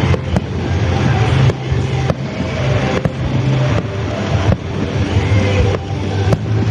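Aerial fireworks shells bursting: a string of sharp bangs at irregular spacing, about one or two a second, over a steady low rumble.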